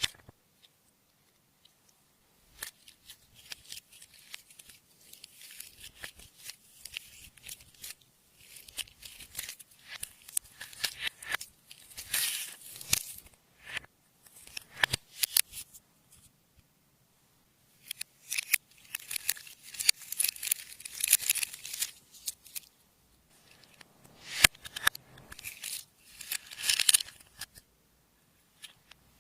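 Clear slime being kneaded and stretched by hand, giving sticky crackling and popping in bursts of a few seconds with short pauses between them.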